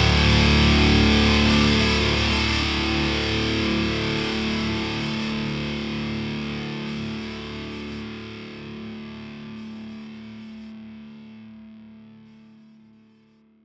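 Background rock music ending on a held, distorted electric-guitar chord that rings on and slowly fades out, dying away near the end.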